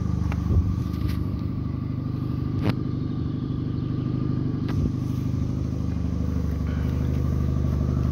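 Peugeot 206 engine idling steadily, running gently, with a few light clicks over it.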